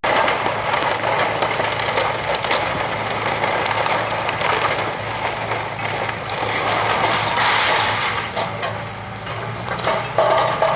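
Hitachi Zaxis demolition excavator's diesel engine running steadily as the hydraulics swing the arm and grab, with scattered knocks and clatter of debris.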